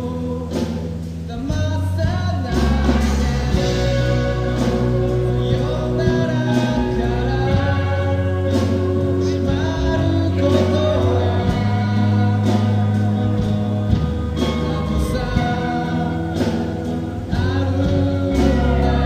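A band playing a song, with a lead vocal singing over bass and drums.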